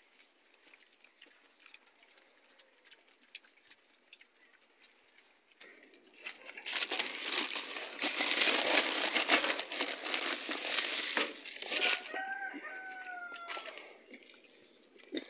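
Farm animal sounds: after several quiet seconds comes a loud, harsh, noisy stretch of about five seconds, then a single short call that falls slightly in pitch.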